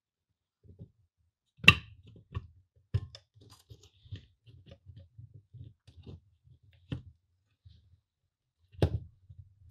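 Hands fitting the painted metal top cap onto a vintage electric railroad lantern's body. Low rubbing and scraping of hands on metal, with four sharp metal clicks as the cap seats, the loudest about two seconds in and another near the end. The cap goes on as a snug fit.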